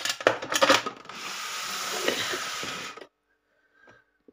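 Household objects being moved about on a kitchen counter: a few quick knocks in the first second, then about two seconds of steady scraping or rubbing that cuts off suddenly.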